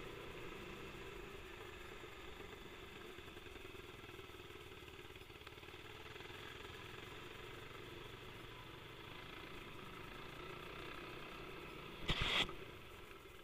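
Dual-sport motorcycle engine running steadily while riding a dirt trail. About twelve seconds in, a loud, brief rubbing as a gloved hand wipes the camera lens.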